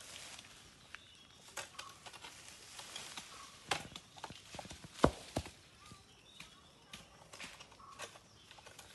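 Long-handled manual bush cutter chopping into weeds and vines: irregular chops and knocks of the blade with rustling foliage, the loudest blow a little after five seconds in.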